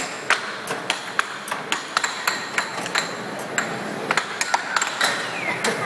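Air hockey puck and mallets clacking: a quick, irregular run of sharp clacks, several a second, as the puck is struck back and forth and bounces off the table's rails.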